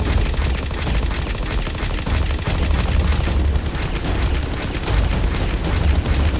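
Rapid gunfire sound effect: a dense, steady stream of shots over a deep low rumble.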